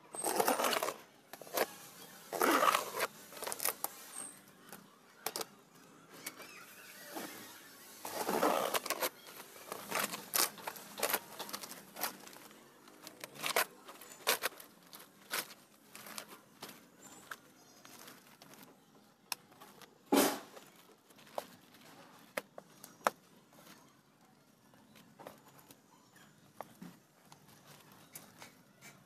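Courier parcel packaging being opened by hand: rustling and tearing in a few bursts, with many small crackles and clicks, and one sharp click about twenty seconds in.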